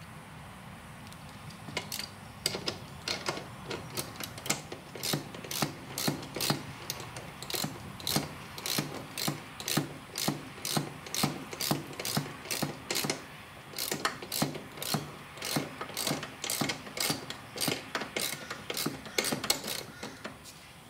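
Socket ratchet clicking in quick repeated strokes, starting about two seconds in, as a 17 mm socket tightens the tie rod end nut on a ride-on mower's steering.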